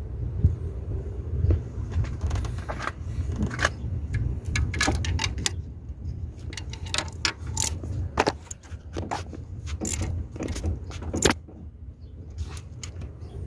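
Metal hand tools clinking and clicking against metal bolts and engine parts: a scatter of sharp metallic ticks in irregular clusters, as a wrench works the fastenings of a replacement EGR valve. A steady low rumble sits underneath.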